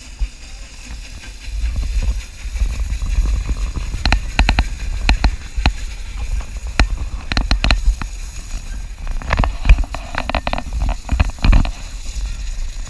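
Narrow-gauge train rolling, heard from its open-air car: sharp, irregular clacks and knocks of the wheels on the track, some in quick clusters, starting about four seconds in. Under them runs a low rumble of wind on the microphone.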